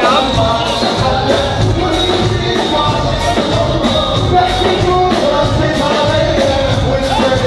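Live Egyptian pop song: a male lead singer sings into a handheld microphone over a full band with a steady beat.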